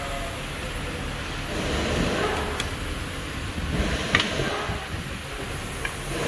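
Steady background noise with a few light, sharp clicks about two and a half, four and six seconds in.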